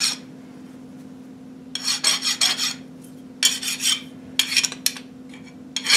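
Hand file rasping back and forth across the edge of a steel connecting rod cap in short runs of quick strokes, deburring raised edges. A steady low hum runs underneath.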